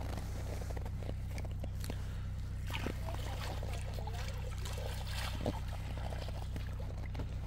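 Cold water sloshing and trickling around a person wading in a hole cut in pond ice, with small splashes as a hand scoops water, over a steady low rumble.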